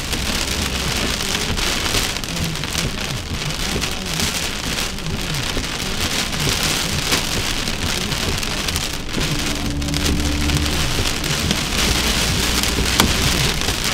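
Heavy rain pouring steadily in a thunderstorm, with a brief low hum about nine seconds in and a single sharp click near the end.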